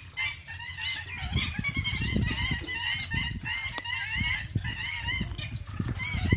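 A group of birds squabbling, giving many short, repeated chattering calls as they fight over territory, over an uneven low rumble.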